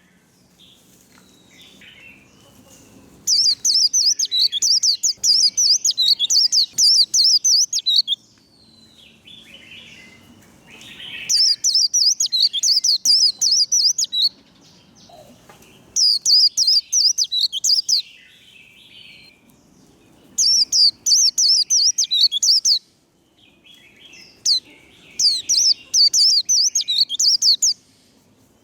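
White-eye (vành khuyên) singing its rapid 'líu' song: five bouts of fast, high twittering a few seconds each, separated by short pauses with soft chirps.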